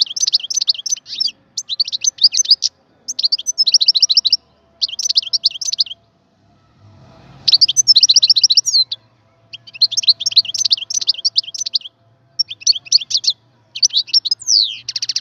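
European goldfinch singing: phrase after phrase of fast, high twittering notes, each burst about a second long with short pauses between, and a longer pause a little before the middle. The last phrase ends in a downward-sweeping note.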